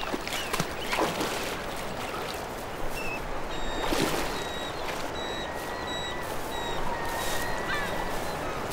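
Shallow river water running and splashing as bears wade and fish for salmon, with a couple of stronger splashes about one and four seconds in. Faint high bird calls come through in the middle.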